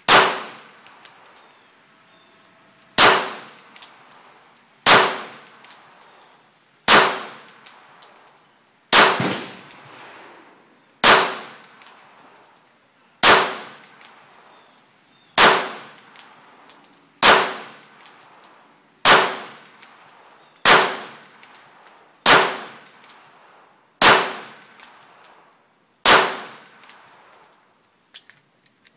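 Semi-automatic pistol fired in slow single shots: fourteen shots about every two seconds, each with a short ringing tail, and small clinks between shots.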